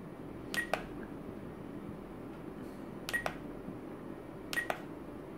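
Spektrum DX9 radio transmitter's scroll wheel being clicked three times, each click a quick double click with a short high beep from the transmitter as it steps through its menu. A steady low background hum runs under the clicks.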